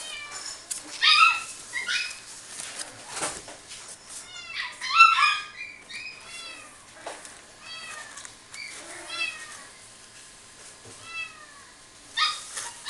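Bernese Mountain Dog puppy whining and yelping in a string of short, high-pitched cries, loudest about a second in and again around five seconds in.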